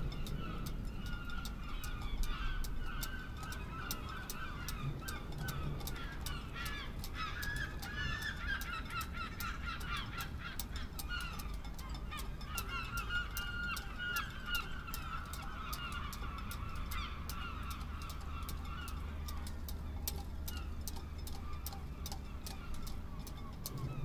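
A flock of water birds calling: many short, rapid calls overlapping for most of the stretch and fading out near the end, over a steady low wind rumble.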